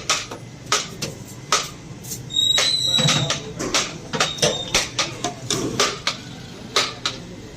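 Metal kitchenware clanking: irregular sharp knocks of utensils on pots and plates, about one to two a second, with a brief high squeal about two and a half seconds in.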